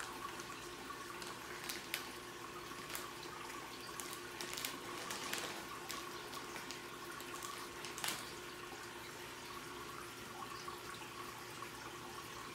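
Aquarium water trickling and dripping, with a steady hum underneath and scattered sharp ticks and small splashes, the sharpest about two seconds and eight seconds in.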